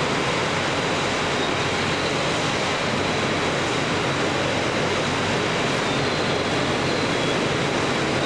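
Steady station-platform ambience beside a standing shinkansen train: an even rushing noise with no pauses and a faint high tone over it.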